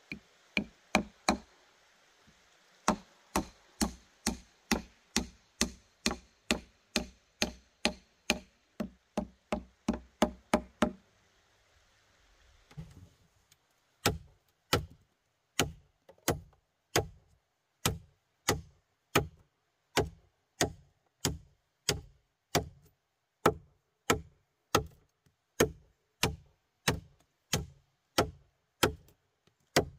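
Evenly paced hard knocks of a tool striking wood, about two a second. They pause for a few seconds near the middle, then carry on at the same pace.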